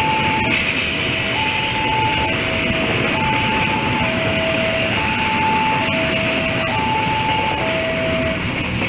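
Railway level-crossing warning signal sounding, two electronic tones alternating high and low, each held just under a second, stopping shortly before the end. A steady loud rushing noise runs underneath.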